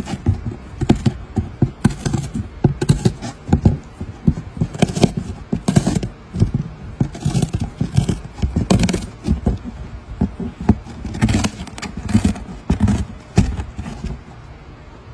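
A cat chewing and biting at the edge of a cardboard box, close up: irregular crunching and scraping of the cardboard that keeps going in short bursts.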